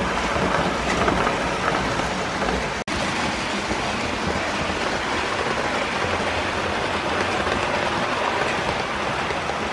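Model trains running past close by on a model railway layout: a steady, even rattling rush of wheels on the track. The sound drops out for an instant about three seconds in.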